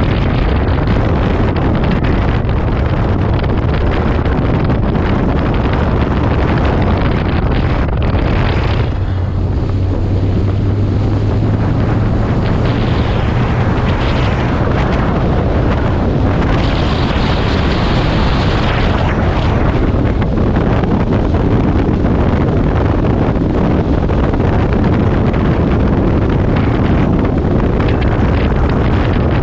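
Wind buffeting the microphone of a motor trike travelling at speed on an open road, with the trike's engine running steadily underneath. The engine note comes through a little stronger about nine seconds in, then the wind rush returns.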